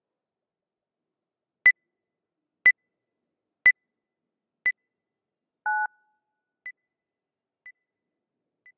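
Short, high electronic beeps exactly once a second, in step with the clock's seconds. About five and a half seconds in, one longer two-note beep sounds lower than the others. The once-a-second beeps then go on, each fainter than the last.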